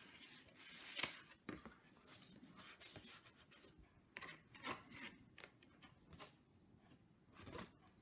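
Faint, short scraping and rubbing sounds from a thin paintbrush working paint in a plastic palette and a small canvas being handled on the paper-covered table, the loudest scrape about a second in.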